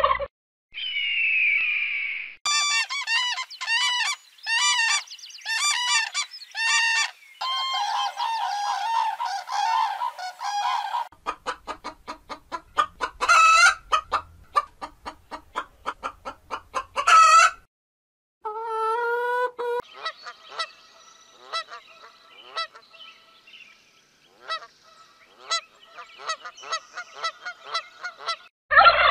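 Domestic poultry calling in short spells: a run of repeated goose honks, then rapid chicken clucking with a few louder squawks, then scattered single clucks and calls.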